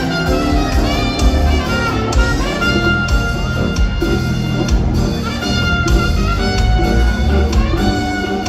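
Ska instrumental: a horn section with trumpet and saxophone plays held and sliding notes over a steady band rhythm.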